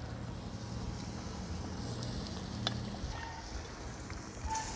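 Thick fish curry bubbling at the boil in a large wok over a wood fire, as a metal ladle pushes fish-head pieces into it. There is one light knock a little under three seconds in.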